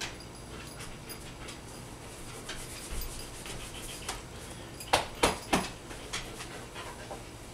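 A dog jumping up and pawing at a person, making scattered light clicks and clinks, with three sharper clicks in quick succession about five seconds in.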